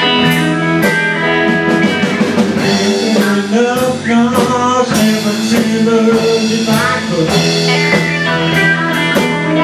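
Live blues band playing an instrumental passage: electric guitars over bass and drum kit, with bent, gliding lead notes and steady drum hits.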